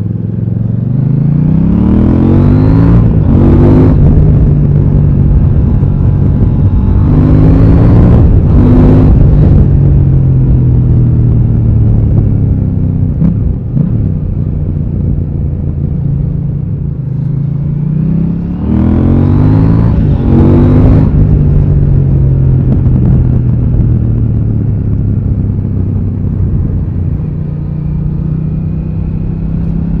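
KTM 890 Duke R's parallel-twin engine pulling hard through the gears. The revs climb and break off at upshifts about three and a half, nine and twenty-one seconds in, and between them it runs at a steadier, slowly falling pitch. The revs rise again near the end.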